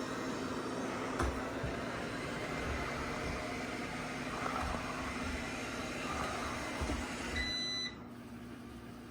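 Robot vacuum running with a steady whir and hum, with a click about a second in; near the end it gives a short beep and its running noise drops away.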